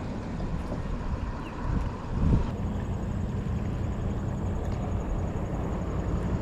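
Wind rumbling on the microphone over the noise of traffic from the nearby road, with a brief thump about two seconds in and a steady low hum after it.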